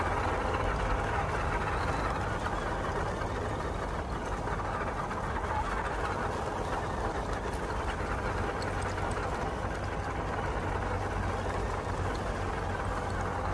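Electric motor and drivetrain of an MN128 scale RC crawler whirring steadily as it drives over dirt and grass.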